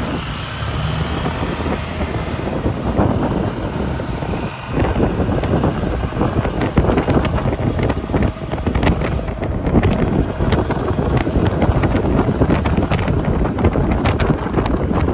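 Vehicle noise mixed with wind buffeting the microphone, with many short sharp clicks and taps scattered through the second half.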